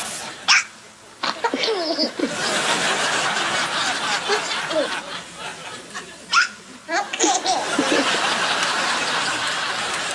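A baby laughing in repeated chuckling peals, set off by another baby's hiccups, which come as a few short, sharp jolts between the laughs.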